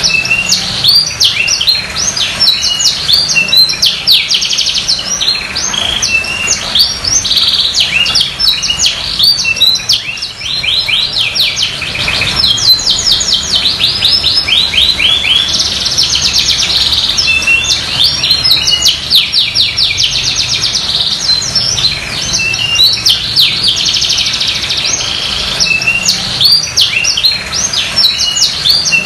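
Domestic canary singing in full 'gacor' song, the kind used to set other canaries singing: one fast rolling trill after another, mixed with quick chirps, with only brief breaks.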